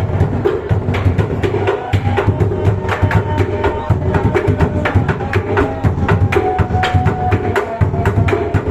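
Bedug, the large mosque drum, being beaten in a fast, dense rhythm: deep drum beats mixed with many sharp, clacking stick strikes, several a second, without a break.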